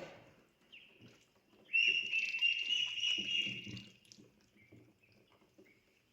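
Ducklings and chicks peeping: a loud, rapid, high-pitched run of peeps lasting about two seconds, starting nearly two seconds in. Soft scattered pattering and dabbling of bills in drinking water runs underneath.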